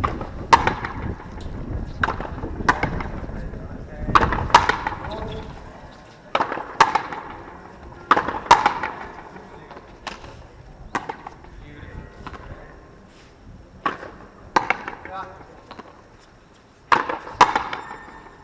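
A frontenis rally: rubber ball struck with rackets and slapping off the frontón wall, sharp cracks with a short echo, often in quick pairs. The hits come thick in the first half and sparser later, with a pause before a last pair near the end.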